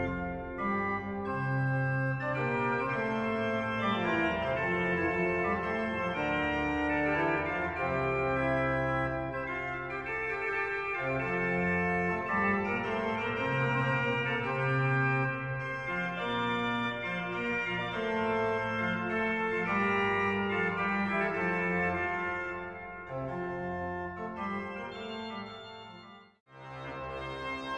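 Pipe organ (the 1774 Jean-Esprit Isnard organ) playing a French Baroque 'duo sur les tierces' in G major, two lines on tierce registration. The piece stops about 26 seconds in, and after a short gap another organ piece starts louder near the end.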